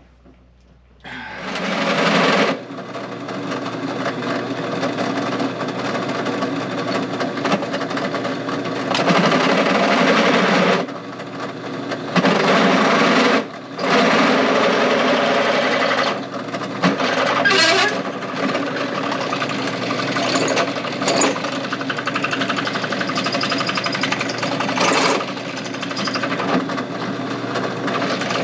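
Drill press running with a 1/2-inch bit boring through a car door hinge. It starts about a second in and runs steadily, dipping briefly several times as the cut eases.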